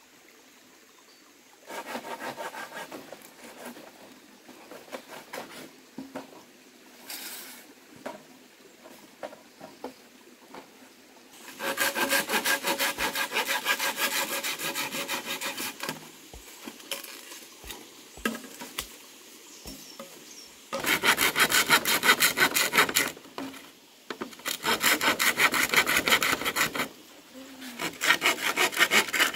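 Hand saw cutting through bamboo: about five bursts of fast, rasping strokes a few seconds each, with short pauses between and a few light knocks in one pause.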